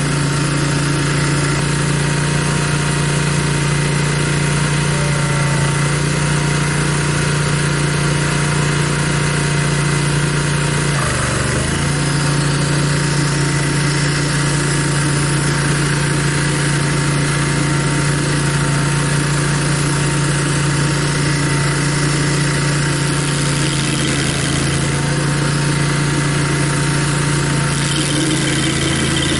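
Barreto stump grinder's gasoline engine running steadily, its pitch dipping briefly about eleven seconds in and then recovering.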